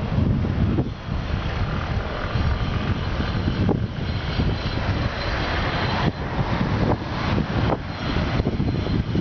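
Wind buffeting the microphone of a camera on a moving bicycle: a continuous low rumble that swells and dips.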